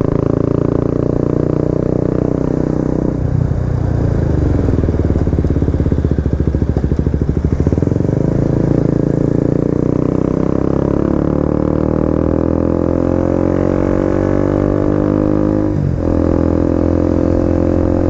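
KTM RC 250's single-cylinder engine running on the move. The revs drop about three seconds in and it runs low and pulsing for a few seconds, then climbs steadily for several seconds. Near the end the pitch falls sharply at a gear change and then holds steady.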